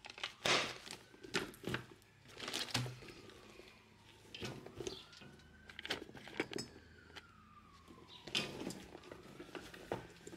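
A faint siren wailing slowly up and down, under scattered knocks, taps and rustles of cases and bags being handled and packed.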